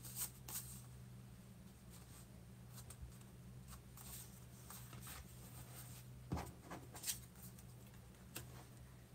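Card stock being handled and slid on a desk: faint paper rustles and scrapes with a few light taps, the clearest about six seconds in, over a low steady hum.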